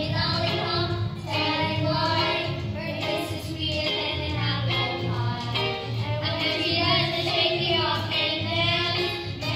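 Children's choir singing a 1950s-style song with instrumental accompaniment.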